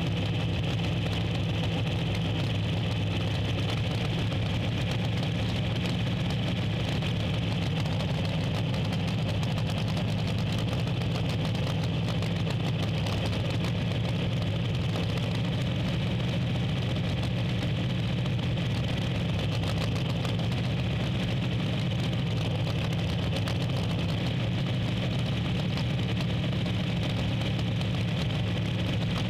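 Drag-racing car engine idling steadily, with an even, unchanging low drone.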